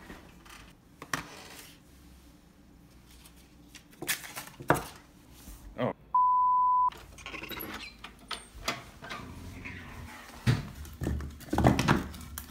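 Scattered knocks and footstep and handling noises, interrupted about six seconds in by a single steady high beep lasting just under a second, with all other sound cut out. Near the end, split curly maple firewood clunks as pieces are moved and one is lifted from the pile.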